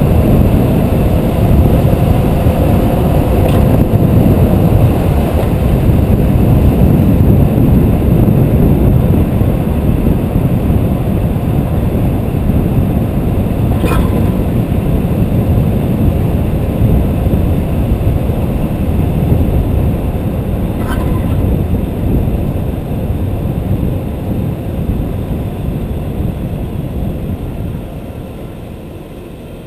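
Steady road and wind rumble from a car driving, with two short knocks in the middle stretch; the rumble dies down over the last few seconds as the car slows.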